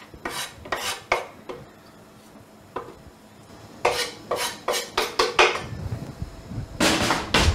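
Knife scraping and knocking chopped parsley off a wooden cutting board into a metal frying pan: a few scrapes at first, then a quick run of strokes after a short pause, and a louder clatter near the end.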